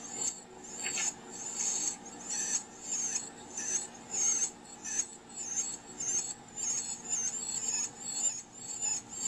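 Carolina wren giving a steady series of short, high-pitched, wavering chirps, roughly two a second.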